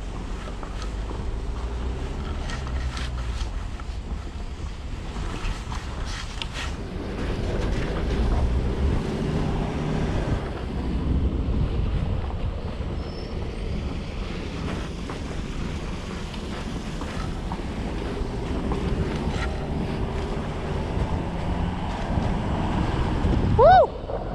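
Car driving over a rough, wet, potholed road: steady low engine and tyre rumble, with wind on the microphone and a few light knocks from the bumps. Just before the end comes one brief, loud chirp that rises in pitch.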